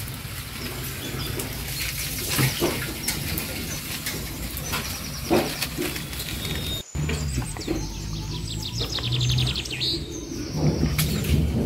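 Small birds chirping, with a quick run of repeated high chirps about two-thirds of the way in, over a steady low hum.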